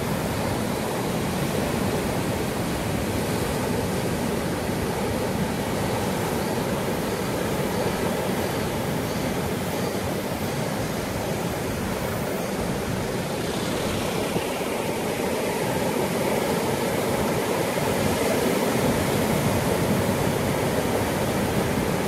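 Rough sea surf breaking and foaming over coastal rocks: a continuous wash of wave noise that swells a little in the last few seconds.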